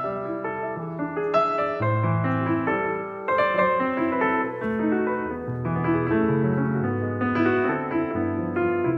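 Background piano music, a steady flowing melody of sustained notes.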